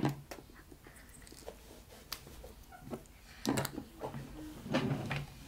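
Scattered small clicks, taps and rustles of things being handled on a desk, with short clusters of taps about three and a half and about five seconds in.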